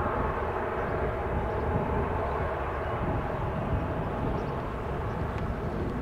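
Boeing 737-800's CFM56-7B turbofan engines running at low thrust as the airliner taxis and turns: a steady jet rumble and hiss with a faint hum.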